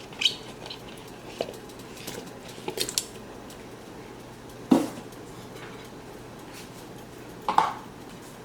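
Pieces of sweet potato being dropped into a cooking pot, with utensils clinking against the pot: a handful of separate knocks spread out, the loudest a little under five seconds in.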